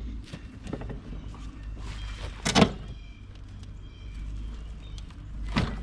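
Knocks and scraping as a pipe bender is worked against a lawn mower's bent crankshaft in an attempt to bend it straight, the loudest knock about two and a half seconds in and another near the end.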